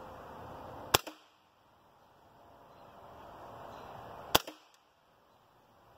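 Hatsan Invader Auto .25-calibre semi-automatic PCP air rifle firing two shots about three and a half seconds apart. Each is a sharp crack followed a moment later by a fainter knock.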